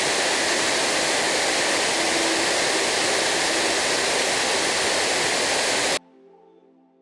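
Waterfall: the steady, loud rush of falling water, which cuts off suddenly about six seconds in, leaving faint music.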